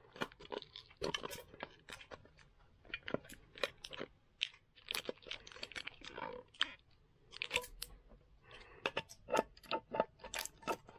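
Crinkling and crackling of plastic wrapping being pulled off a Pokémon card mini tin while it is pried open, in many short irregular crackles, with scissors cutting into a booster pack near the end.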